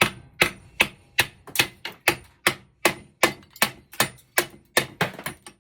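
Hammer blows on a metal copper-aluminum heat sink, about fourteen evenly spaced strikes at roughly two and a half a second, each with a short metallic ring. They are knocking the retaining C-clips and parts off to separate the copper from the aluminum.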